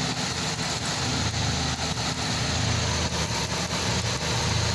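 Nissan GA15 1.5-litre four-cylinder engine idling, with sharp ticks scattered through it. A leaking number 4 spark plug wire is causing a secondary misfire.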